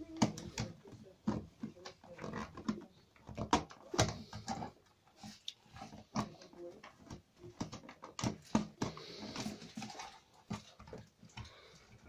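Plastic smoke alarm being twisted and worked against its ceiling mounting base: irregular clicks, knocks and plastic-on-plastic scraping.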